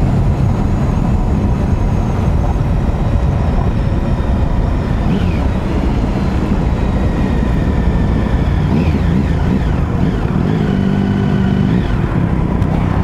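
Triumph Sprint ST1050's three-cylinder engine running at road speed, under dense wind and road noise at a helmet camera.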